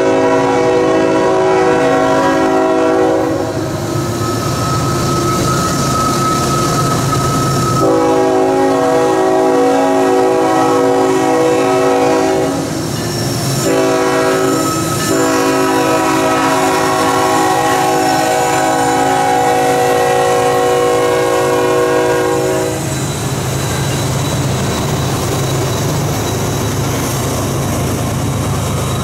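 CSX freight locomotive's multi-note air horn sounding the standard grade-crossing warning: a long blast, a second long blast, a short one, then a final long blast held for several seconds. About three-quarters of the way through the horn stops, leaving the rumble and wheel clatter of covered hopper cars rolling past.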